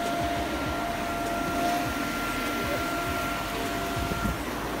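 Electric blower fan of an inflatable water slide running steadily, a constant whine over its air rush.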